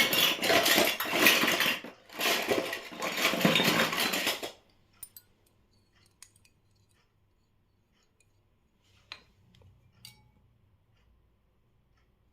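Miniature toy kitchen pieces clattering and clinking together in two bursts of about two seconds each, followed by a few light, scattered clicks.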